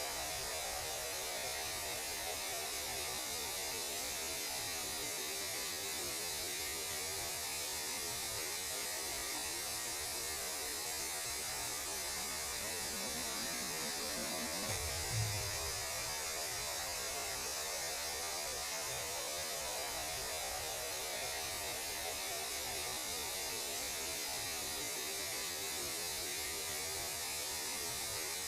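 Steady radio static: an even hiss with a low hum underneath. A brief low thump comes about halfway through.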